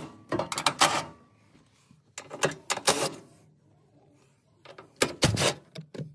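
Cordless power tool spinning off the bolts that hold down a hybrid battery pack, in three short bursts of rapid mechanical clatter about a second each.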